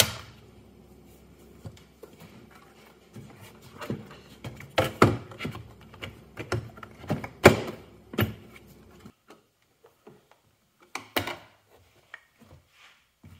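Center console armrest lid shutting with a sharp thunk at the very start, followed by a run of knocks and plastic clicks from handling the lid and console trim, with a few more clicks near the end.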